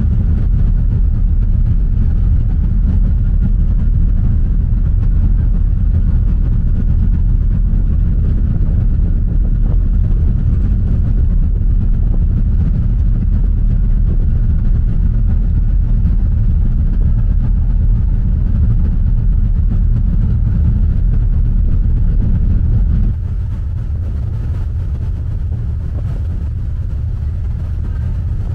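Kamoike–Tarumizu car ferry under way: a loud, steady low rumble of its engines and propellers churning the wake, heard from the stern deck. About twenty-three seconds in, the rumble drops suddenly to a quieter, steady level.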